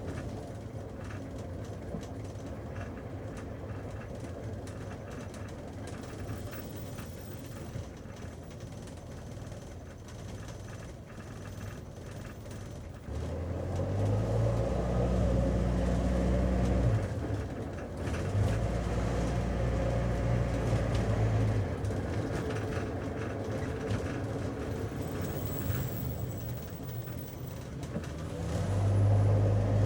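Taxi interior while driving: steady low engine and road rumble. The engine grows louder about halfway through, eases off briefly, then pulls again, with another swell near the end.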